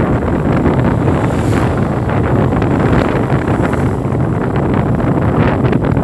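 Wind buffeting the microphone over steady street traffic noise.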